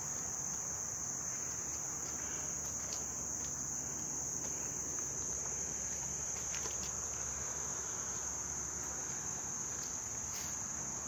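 A steady, high-pitched chorus of insects droning without a break, with a few faint clicks.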